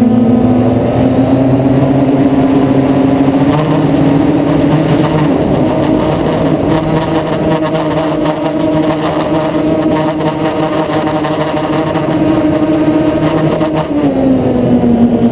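DJI Flame Wheel F450 quadcopter's motors and propellers whining, heard close up from on board; the pitch rises over the first few seconds as it climbs, holds steady, then drops about 14 seconds in.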